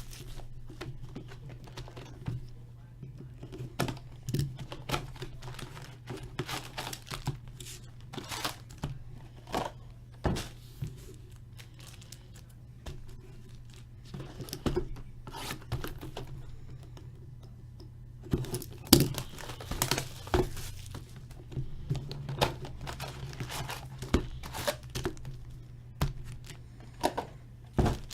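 Sealed trading-card boxes being ripped open: quick, irregular tearing and crinkling of shrink-wrap and cardboard, over a steady low hum.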